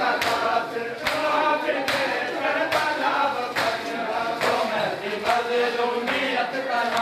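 A crowd of Shia mourners chanting a Muharram lament (nauha) together, with hands striking chests in unison in a steady beat a little more than once a second (matam).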